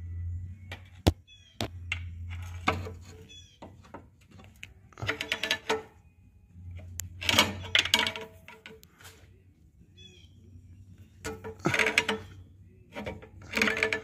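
Steel pry bar levering against the flexplate ring gear teeth through the starter opening to turn the torque converter, in four short bursts of metal scraping and clicking, with a few sharp knocks in the first seconds.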